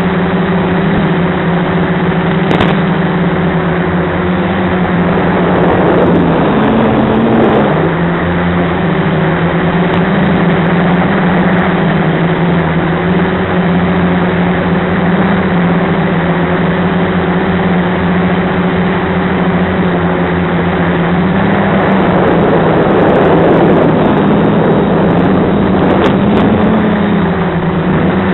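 Quadcopter's brushless motors and propellers in flight, a steady hum over a hiss of wind noise, the pitch rising briefly twice as the throttle changes.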